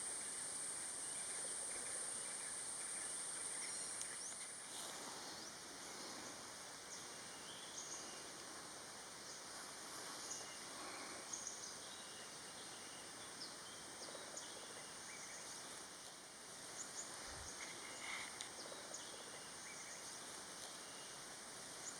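Quiet forest ambience: a steady high-pitched insect drone, louder for the first few seconds, with scattered short bird calls and chirps.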